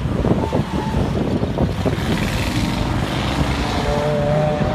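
V8 engine of a V8-swapped Mazda RX-7 running as the car drives by on a track: a steady low rumble, with the engine note climbing near the end.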